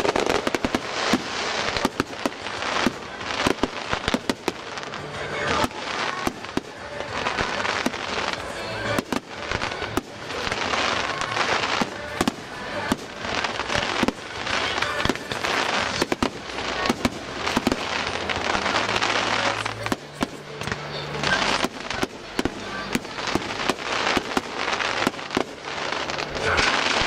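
A fireworks barrage: shells and crackling effects going off in rapid succession, many bangs a second with no letup.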